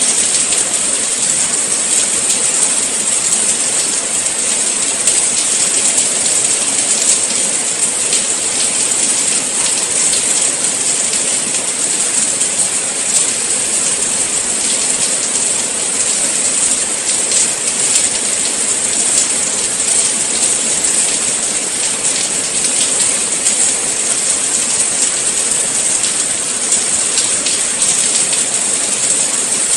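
Steady rain falling: an even, unbroken hiss dotted with many small drop ticks.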